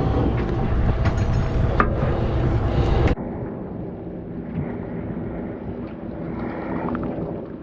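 Boat engine running with a steady drone and wind on the microphone, cutting off abruptly about three seconds in to a quieter, even wind and water hiss.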